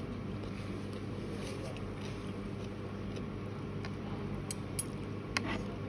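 Steady low mechanical hum in the background, with a few short sharp clicks near the end, typical of eating noises such as crunching or utensils.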